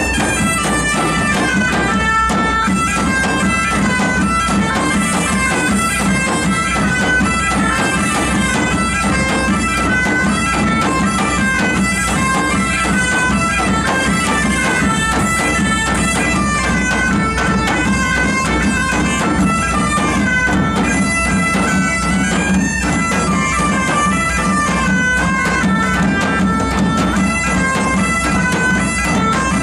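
Medieval folk dance tune played live on bagpipes, a steady drone under the melody, with a second wind instrument playing along and large bass drum and rope-tensioned drum beating a steady rhythm.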